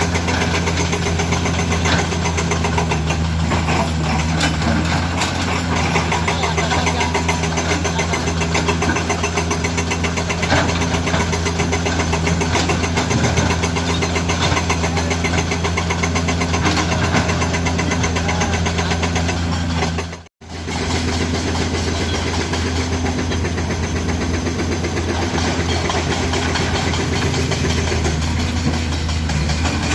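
Komatsu PC200 hydraulic excavator's diesel engine running steadily, with frequent small clicks and knocks over it. The sound drops out for a moment about two-thirds of the way through, and the engine note shifts slightly after.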